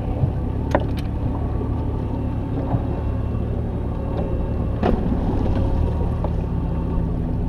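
Bass boat outboard motor idling: a steady low hum, with a few sharp knocks about a second in and again near five seconds in.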